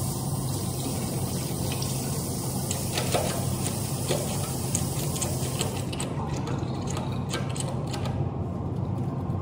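Water running steadily from a tap into a sink, with light splashes as hands are washed under it.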